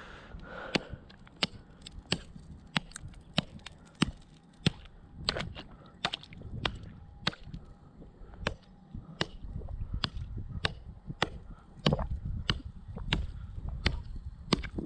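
Axe chopping through about three inches of pond ice to cut a fishing hole: sharp, steady strikes about one and a half a second, with low wind rumble on the microphone underneath.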